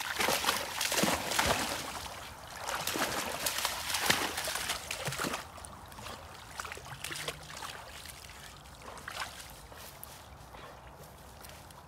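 Springer spaniels splashing in pond water: heavy splashing and sloshing for about the first five seconds, then fainter, scattered splashes.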